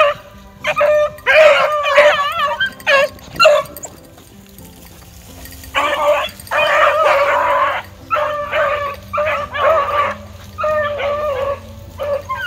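Rabbit hounds baying in runs of long, wavering bawls, the sign of dogs running a rabbit's scent trail. The baying stops for about two seconds midway, then starts again.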